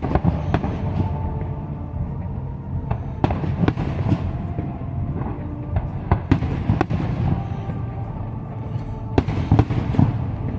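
Aerial firework shells bursting in a string of sharp bangs and cracks, in clusters every few seconds, over a low rumble, with music playing underneath.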